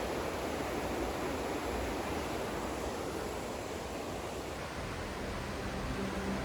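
Steady rush of falling water from a waterfall. Background music fades in faintly near the end.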